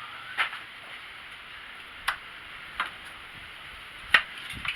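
A few short, sharp clicks and knocks, spaced unevenly, from handling the car battery's hold-down bracket and its rods; the loudest comes near the end.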